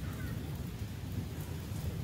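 Steady rainfall, with a continuous low rumble underneath.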